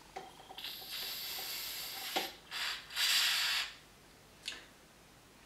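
Aerosol can of gun oil spraying onto an air pistol in three hissing bursts: a longer one, then a short one, then the loudest. A small click comes between the first two bursts, and another click comes near the end.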